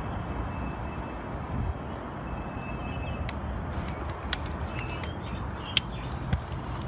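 Steady low rumble of wind and tyre noise from an electric scooter being ridden over a path and onto grass. From about halfway in there are scattered sharp clicks and knocks, the scooter rattling over bumps, with one louder knock near the end.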